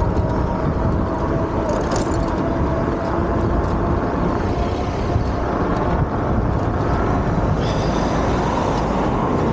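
Wind buffeting the microphone and tyre noise from an electric bike coasting at about 15–20 mph, with a faint steady tone through the first half.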